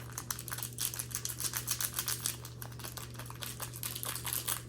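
Trading cards and their packaging handled by hand: a dense run of quick papery clicks, flicks and rustles, over a steady low hum.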